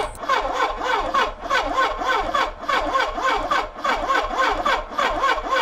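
A 1980 Suzuki GSX1100E four-cylinder engine turning over on its electric starter, a steady rhythmic cranking with several pulses a second. It is being cranked for a spark test on the ignition lead for cylinder 2, which sparks across the tester gap.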